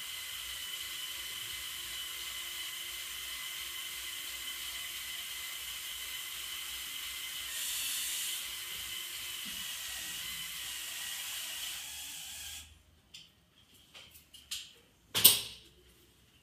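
Motor and gear train of a LEGO Technic model crane running steadily as the boom is lowered: a high whine over a hiss. It cuts off about 12–13 seconds in and is followed by a few light clicks and one sharp click.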